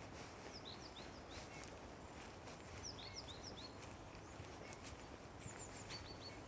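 Small songbirds chirping in a forest: a quick run of short, high, falling chirps about half a second in and another around three seconds in, with a few thin high notes near the end, over a steady background hiss.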